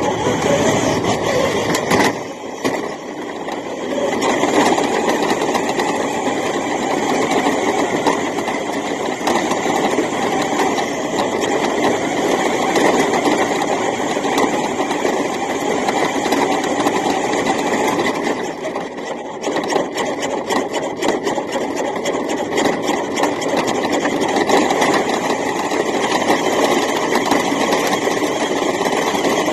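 New Bright RC Ford F-350 toy truck's electric drive motor and gearbox whirring steadily as it drives, heard from inside the truck. The sound dips briefly about two seconds in and again about two-thirds of the way through.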